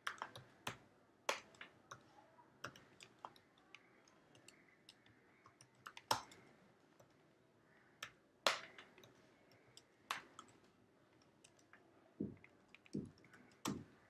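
Typing on a computer keyboard: faint, irregular keystrokes with short pauses, two of them about six and eight and a half seconds in struck harder than the rest.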